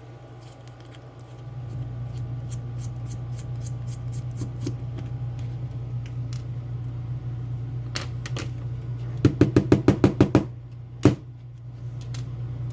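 Small metallic clicks from handling a picked Mul-T-Lock Classic lock cylinder while it is being taken apart. Then comes a quick run of about nine loud knocks, roughly eight a second, and one sharp knock a second later, all over a steady low hum.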